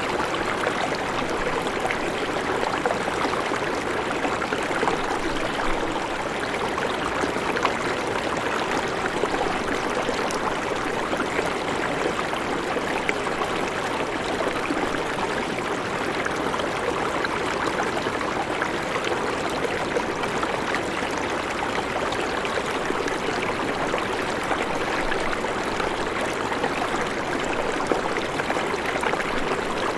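A shallow river runs steadily over rocks in an even rush of water. Light, occasional taps of a knife cutting vegetables on a wooden cutting board sit under it.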